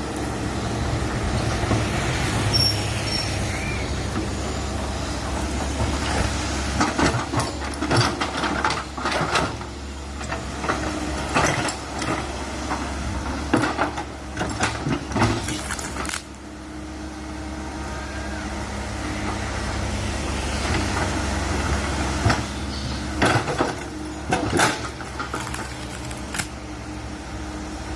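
Komatsu PC130 hydraulic excavator's diesel engine running steadily under load, with bursts of sharp metallic clanks and knocks from the bucket as it digs out a deep-rooted tree stump.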